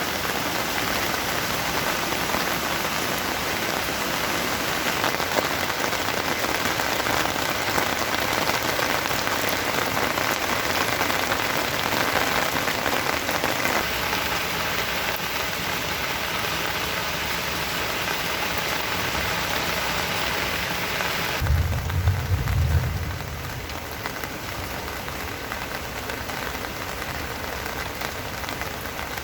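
Steady rain falling, an even hiss of many drops. About two-thirds of the way through there is a short low rumble, the loudest sound here. After it the rain sounds softer and duller.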